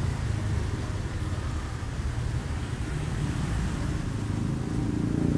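Steady low rumble of passing street traffic, with one vehicle engine coming up and growing louder near the end.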